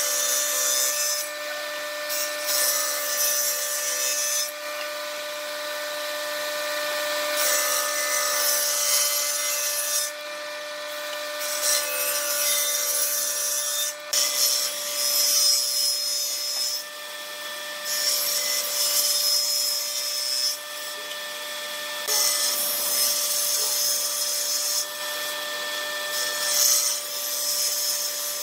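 Table saw running steadily, its blade cutting through pine boards in a series of cuts a couple of seconds each. Between the cuts the blade spins free with a steady whine.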